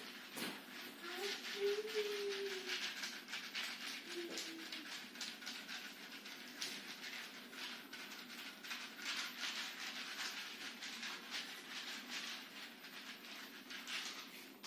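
Scratchy rustling and irregular soft clicks of hands rubbing and kneading a man's scalp, hair and shoulders during a traditional massage. Two short low tones sound about a second in and again around four seconds.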